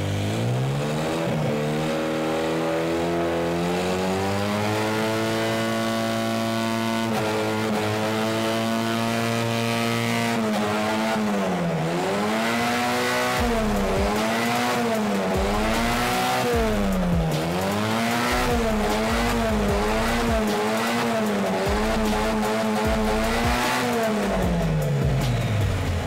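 Lada's four-cylinder petrol engine, driving an oversized Kirovets tractor turbocharger, revving. It climbs from idle to a held higher speed, then from about halfway is blipped up and down about ten times in quick succession, and drops back to idle near the end. The turbo spins but the engine cannot spin it fast enough to suck in the banana jammed in its intake.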